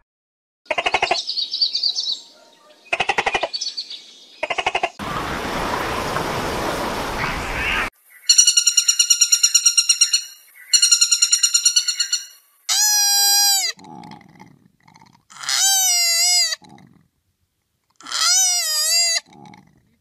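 A string of separate animal calls. In the middle, a pileated woodpecker gives two loud series of fast, high calls. They come between two short pulsing calls and a few seconds of hiss before, and three shorter calls after that dip and rise in pitch.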